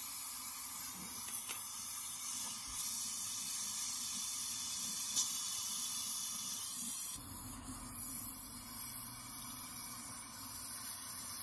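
Gas brazing torch flame hissing steadily while heating the copper pipe joints on a refrigerator compressor. The hiss deepens slightly about seven seconds in.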